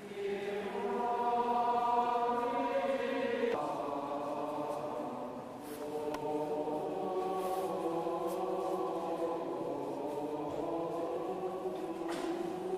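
A choir singing a slow chant-like hymn in long held notes that ring on in a large stone church. The singers move to a new phrase about three and a half seconds in.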